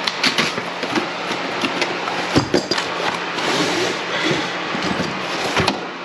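Cardboard box and packaging being opened and handled: irregular rustling, clicks and light knocks, over a steady low hum.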